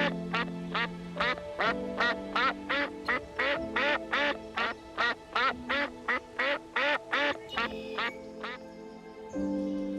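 Duck quacking in a fast, even series of about two or three quacks a second, stopping near the end.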